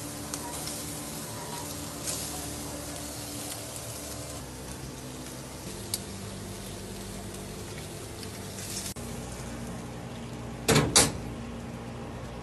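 Small whole fish sizzling on a charcoal grill: a steady hiss over a low hum, with two loud knocks close together near the end.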